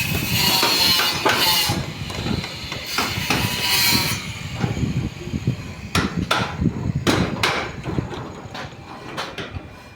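Hammering on a construction job: a run of sharp, irregular knocks from about six seconds in, after a few seconds of rasping, scraping noise.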